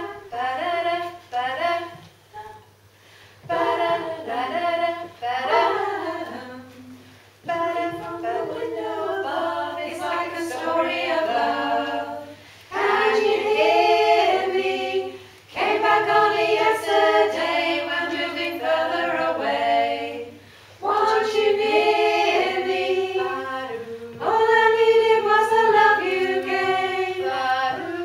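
Small women's choir singing a cappella in harmony, in phrases a few seconds long separated by brief pauses.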